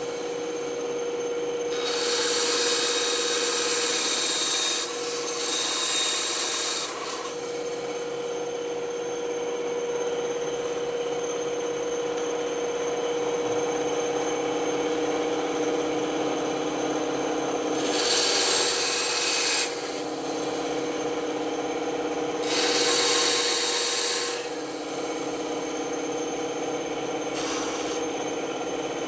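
Band saw running with a steady hum, its blade cutting wood. Several louder stretches of cutting, each a second or two long, come near the start, twice more past the middle, and again near the end.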